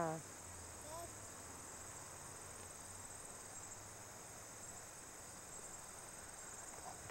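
Steady, faint, high-pitched chirring of insects in the background, over a low hum. A short faint voice sounds about a second in.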